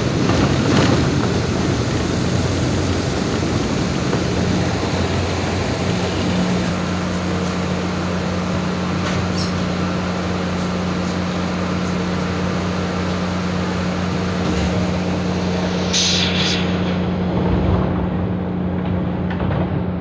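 Commuter train rolling into a station and coming to a stand. The running noise gives way after a few seconds to a steady low hum from the idling train. About three-quarters of the way through there is a short burst of air hiss as the pneumatic doors close.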